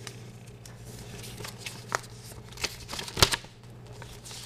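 Paper and packaging being handled: light rustling with several short sharp clicks and ticks, the loudest about three seconds in.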